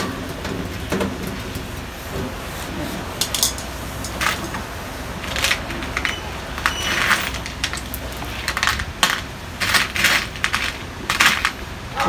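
A string of small, sharp metallic clicks and clinks from a screwdriver and screws being handled while the washing machine's door lock is screwed to the front panel. The clicks come in scattered groups, thickest in the second half.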